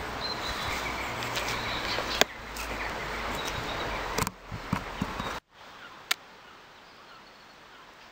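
Outdoor garden ambience: birds chirping faintly over a steady low rumble, with a sharp click about two seconds in. About five seconds in the sound cuts off abruptly and carries on as a much fainter hiss with one more click.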